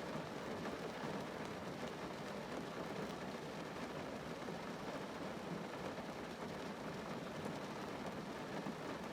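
Rain falling on a car's roof and windows, heard from inside the cabin as a steady, dense patter of drops.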